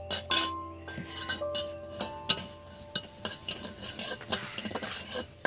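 A metal spatula scrapes and clinks against a metal karahi, stirring coriander seeds as they dry-roast. The seeds rattle, and the strokes come irregularly, some leaving a brief metallic ring.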